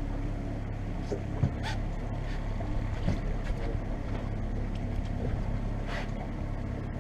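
Fishing boat's engine running steadily with a low hum, with a few short knocks about a second and a half in and again near the end.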